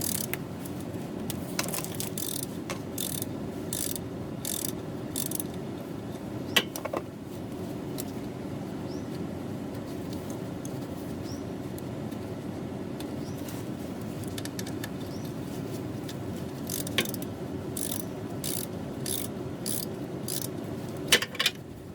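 Socket ratchet clicking in short repeated strokes as a compressor mounting bolt is worked, in two spells, with two sharp metal knocks, one about six seconds in and one near the end.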